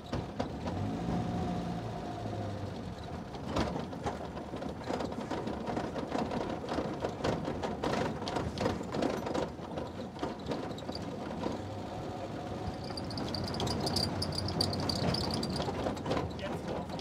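Inside the cab of a 1951 Land Rover Series I on the move: its four-cylinder petrol engine running under load, with constant rattling and knocking from the bare cab and body. A thin high squeal wavers for a few seconds near the end.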